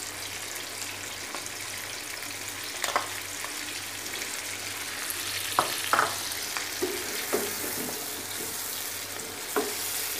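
Chicken pieces sizzling in hot oil in a nonstick wok as yogurt is poured over them: a steady frying hiss. A few sharp knocks of a spatula against the pan come in the second half as the yogurt is stirred in.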